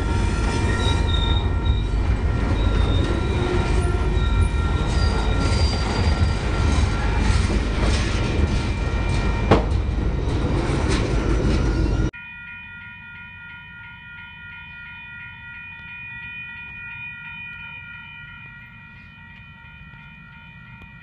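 Freight train of lumber cars and covered hoppers rolling past close by, wheels and cars rumbling and clanking, with one sharp bang about nine and a half seconds in, over the steady ringing of a grade-crossing bell. About twelve seconds in the loud rumble cuts off suddenly, leaving the crossing bell ringing over a faint low hum.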